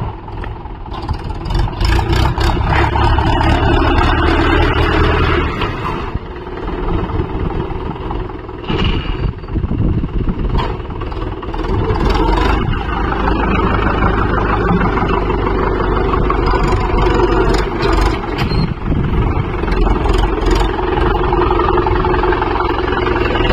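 Mahindra 575 DI tractor's diesel engine running loud and steady under load as its 36-blade rotavator tills the soil, the note easing briefly a couple of times.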